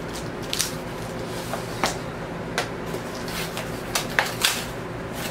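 Cardboard record mailer box being pulled open by hand: scattered crackles and rustles of the cardboard, with several sharp snaps, the loudest about four seconds in.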